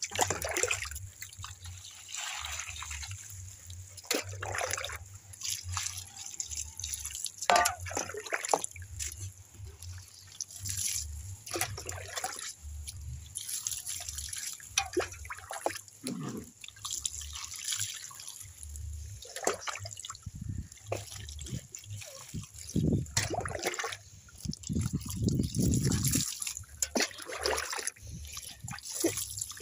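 Water poured from a metal bowl over a small dog's coat, splashing and dripping off onto the chair and grass in repeated, irregular pours.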